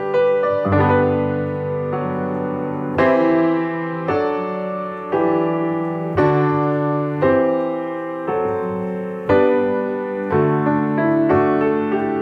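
Solo piano playing a slow, gentle piece: sustained chords struck roughly once a second, each left to ring and fade.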